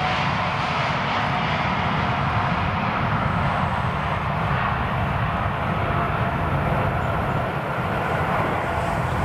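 Airbus A350's Rolls-Royce Trent XWB engines and airflow as a steady, even rumble and hiss, heard from aboard the aircraft.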